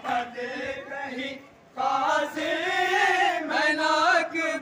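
A crowd of men chanting a noha, the Muharram lament, together in unison. The chant breaks off briefly about a second and a half in, then resumes.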